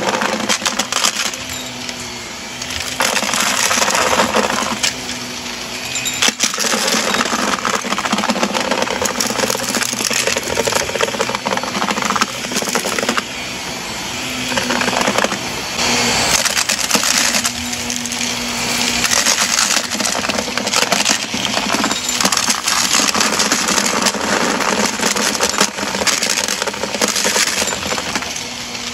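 Shark upright vacuum cleaner running over carpet, with a steady motor hum under dense crackling and clicking as crunchy debris is sucked up and rattles through the machine.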